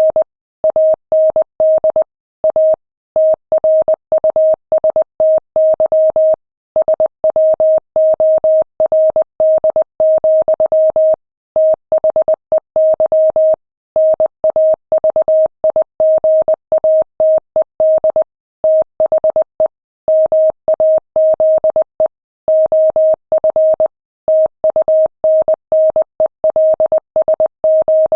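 Morse code sent at 20 words per minute: a single steady mid-pitched beep keyed on and off in dots and dashes, with short breaks between letters and longer ones between words.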